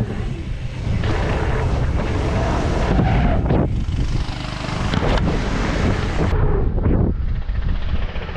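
Wind buffeting an action camera's microphone as a mountain bike is ridden, a loud steady rumble mixed with the bike's rolling noise. About six seconds in the sound changes suddenly and loses its highest tones.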